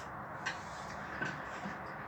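A few soft clicks and smacks from eating noodles, three short ones spread across the moment, over a steady low hiss.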